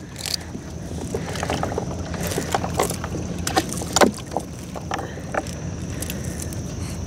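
A boat engine running steadily with a low hum, under scattered light clicks and knocks from the net and its catch being handled on board.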